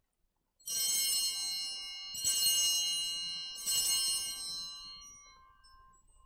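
Altar bells rung three times, about a second and a half apart, at the elevation of the chalice after the consecration. Each shake gives a cluster of bright, high ringing tones, and the last one fades away slowly.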